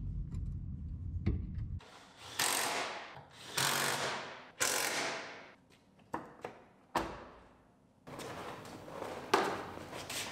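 Cordless power tool run in three short bursts, driving in the door hinge bolts, followed by a few knocks.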